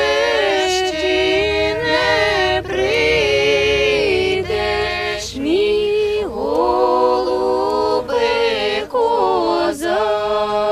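A small group of women singing a Ukrainian folk song unaccompanied, in long drawn-out notes that slide from one pitch to the next.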